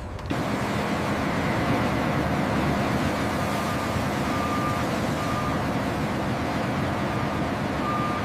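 Steady heavy machinery noise, with a high electronic beep sounding four times in the second half, like a vehicle's reversing alarm.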